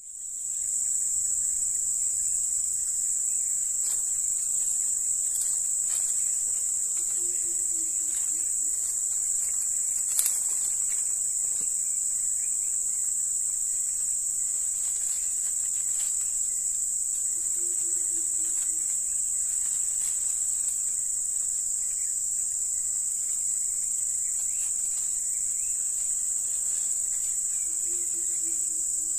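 Steady high-pitched drone of insects, unbroken throughout. A faint short low call repeats three times, about ten seconds apart.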